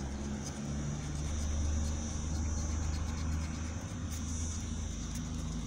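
Wind buffeting the microphone, a low rumble that swells about one and a half seconds in, over a coin scraping the scratch-off coating from a paper scratch card.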